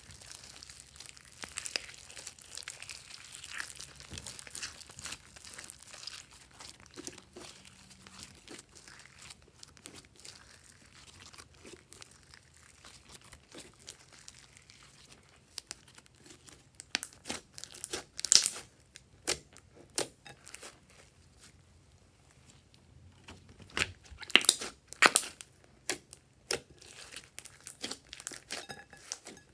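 Hands kneading and squeezing glitter slime in a glass bowl: a dense wet crackling and squishing. In the second half it turns to sharp clicking pops as the slime is pinched and pressed, the loudest a little past halfway and again about three quarters in.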